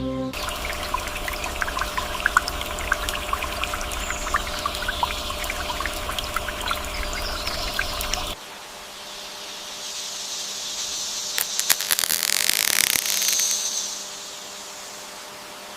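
Water trickling and splashing with many small drips. About eight seconds in a cut brings a quieter water sound that swells with crackling splashes and then fades.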